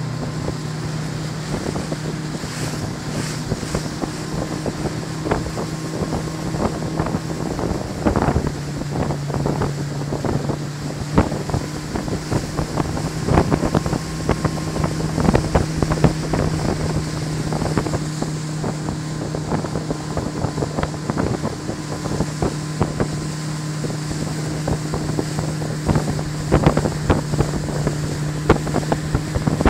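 Correct Craft wakeboard boat's engine running steadily at towing speed, with wind on the microphone and water rushing. Frequent short sharp knocks cut through the engine hum.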